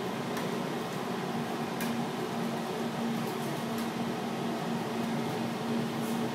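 Steady mechanical hum inside an aerial tramway cabin as it pulls slowly into its station. A low tone in the hum comes and goes in short stretches, with a few faint clicks.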